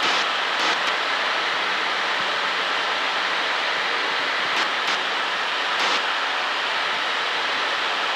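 Steady cabin noise of a small single-engine high-wing airplane in cruise flight: the engine and propeller drone blended with wind rush, with a few short hisses.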